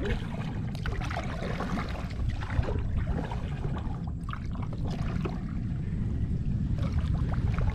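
Water trickling and splashing around a kayak moving through the water, with many small splashy crackles over a steady low rumble.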